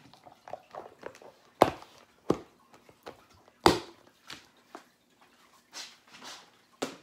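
Kitchen containers being handled and set down: a handful of sharp knocks and clatter, four of them loud, with softer clicks and rustling between.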